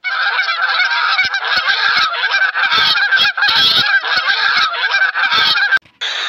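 A flock of domestic geese honking, many calls overlapping in a continuous loud chorus that cuts off abruptly near the end.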